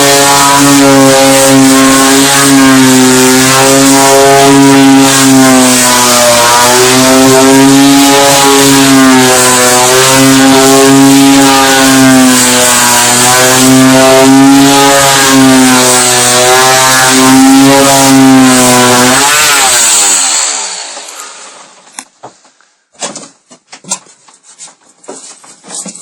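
An electric power tool runs loudly and steadily, its pitch wavering a little as the load changes. It stops about 20 seconds in, and a few sharp knocks and clicks follow.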